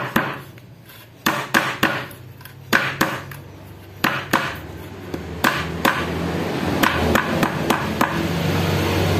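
Rubber mallet tapping the steel end cap of a CLD racing motorcycle silencer into its sleeve, in quick bursts of two to four sharp blows with short pauses between. This seats the cap back onto the freshly packed glasswool. A low steady hum grows underneath in the second half.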